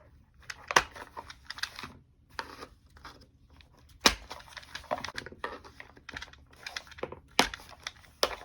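Plastic clips of a Magpul PMAG D-60 drum magazine being pried off with a flat blade: a run of small clicks and scrapes with several sharp snaps, the loudest about four seconds in and two more near the end.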